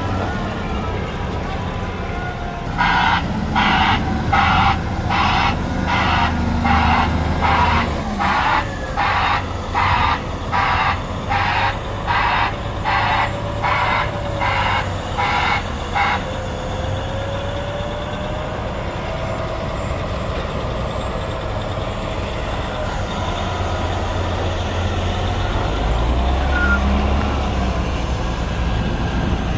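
John Deere 410E articulated dump truck's diesel engine running while its reverse alarm beeps steadily, about three beeps every two seconds, for some thirteen seconds and then stops. A wavering whine follows as the dump body is tipped, and the engine sound grows louder near the end.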